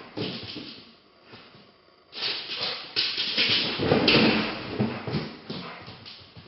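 A dog making sounds amid irregular scuffling and knocks, quieter for a moment and louder again from about two seconds in.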